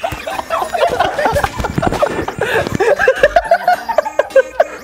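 Men laughing hard in a quick run of short chuckles and snickers.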